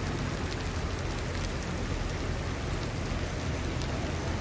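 Heavy rain falling steadily on floodwater and wet pavement, a continuous hiss with faint scattered drop ticks and a low rumble underneath.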